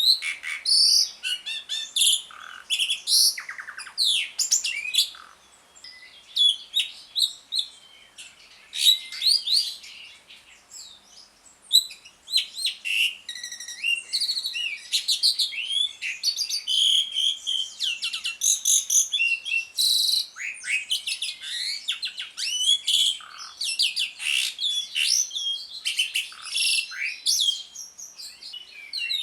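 Jalak suren (Javan pied starling) singing a fast, varied chattering song of whistles, chirps and rasping notes, with a couple of short lulls.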